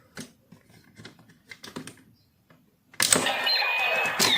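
Light plastic clicks from handling a toy transformation belt, then about three seconds in the CSM Lost Driver's electronic sound effect starts loudly with a hit and falling sweeping tones.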